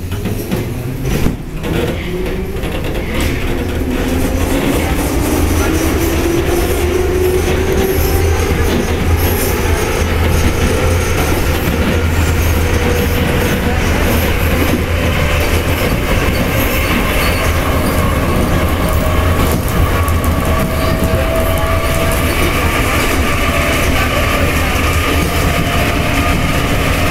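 Ezh3 metro train pulling away and accelerating, heard inside the car. The traction motors whine, rising in pitch over the first several seconds, over a rumble of wheels on rail that grows louder and then holds steady. A single knock comes about a second in.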